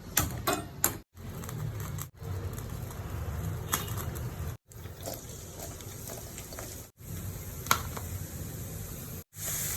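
Cooking sounds of an omelette being made, in several short cut clips: a few quick taps near the start, then a steady low rumble with single clicks now and then.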